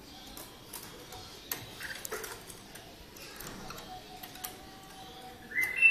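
Scattered light ticks and taps, then near the end a loud bulbul call of clear whistled notes.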